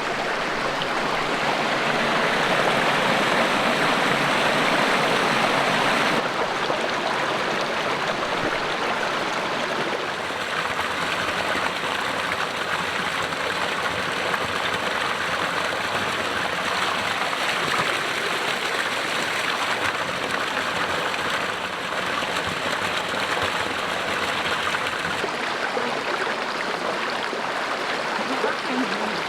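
A stream of water running with a steady rush. The sound shifts slightly in loudness and tone a few times, as if separate takes were cut together.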